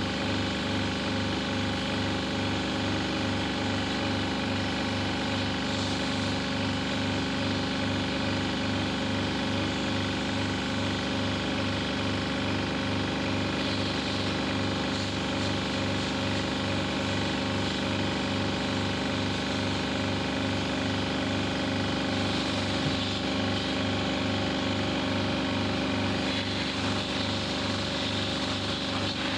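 High-pressure washer running steadily while spraying water, its pump giving a low pulsing about twice a second under a steady machine hum and spray hiss.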